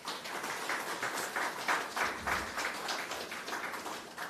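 A small seated audience applauding, a steady patter of many hand claps.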